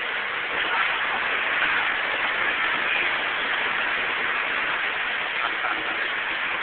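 Steady, even rushing noise of a large industrial hall, the kind made by overhead air handling and machinery running continuously, with no distinct events.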